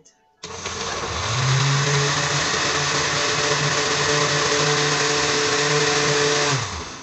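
Oster countertop blender switched on at its low setting, puréeing cooked pumpkin and milk: the motor comes on about half a second in and spins up over about a second. It runs steadily, then is switched off and winds down near the end.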